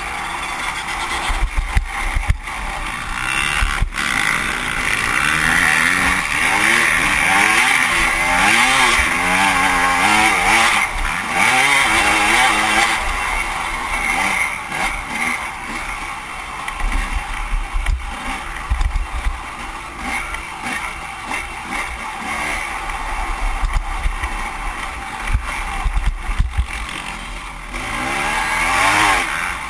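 Off-road motorcycle engine revving up and down as it is ridden over a race course, with a few sharp knocks along the way.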